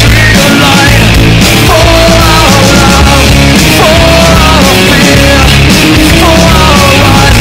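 Loud rock music with a steady beat and a melody line that slides up and down in pitch.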